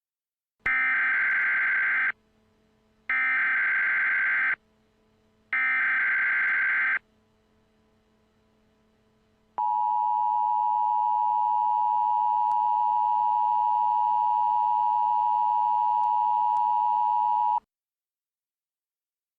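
Emergency Alert System header: three short screeching data bursts, then a long steady attention tone that lasts about eight seconds and cuts off, announcing an alert message.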